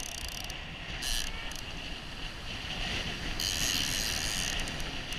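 Large conventional shark-fishing reel being cranked under load to bring a hooked shark in through the surf, a steady mechanical whir, with surf wash and wind on the microphone.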